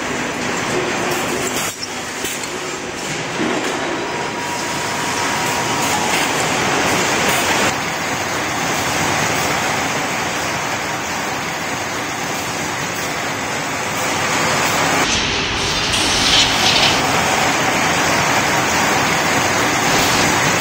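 Steady mechanical noise of factory production machinery running, a continuous din with no clear rhythm. It changes abruptly a few times and gets louder about three-quarters of the way through.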